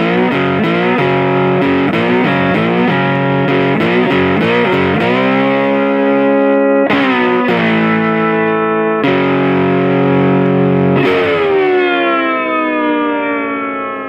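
Intro music: distorted electric guitar playing a run of chords, ending on one held chord that rings out and slowly fades near the end.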